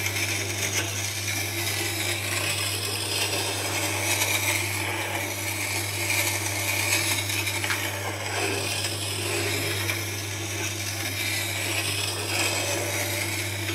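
Tormek wet sharpening stone turning in its water bath with a bowl gouge held against it in a jig: a steady low motor hum under a soft, even grinding hiss as the gouge is rolled across the stone. The water-cooled stone grinds without a huge amount of noise.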